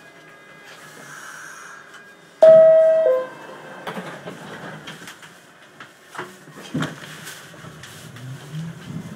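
NYC subway car door chime: two descending tones, the first held longer and loudest. A few seconds later two knocks sound as the doors shut, and near the end the train's low rumble builds as it starts to pull out.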